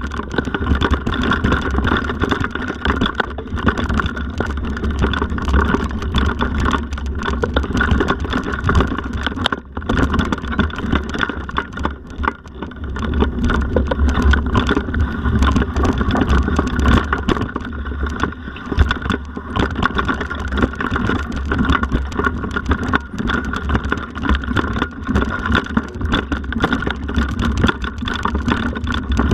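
Mountain bike riding fast down a rough, leaf-covered forest trail: a steady deep rumble of wind and tyres on the ground, with constant rattles and knocks from bumps. It eases off briefly about ten seconds in, then picks up again.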